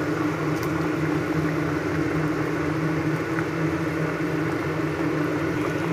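A steady whirring motor hum with two held low tones, over fish curry gravy simmering in a pan.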